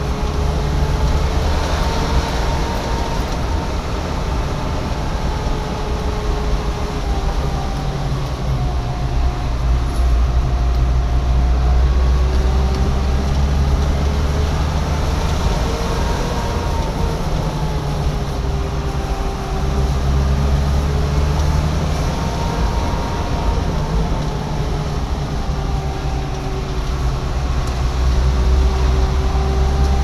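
Vehicle engine and road noise heard from inside the cabin while driving: a steady low rumble with a whine whose pitch slowly rises and falls several times as the engine speed changes.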